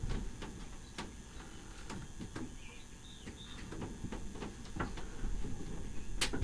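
A few light clicks and knocks scattered over a low room rumble, with one sharper click near the end.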